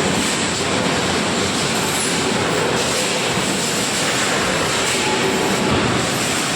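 Steady industrial noise from a robotic welding line: a dense, even hiss and clatter of machinery that runs on without pause, with a faint steady tone underneath.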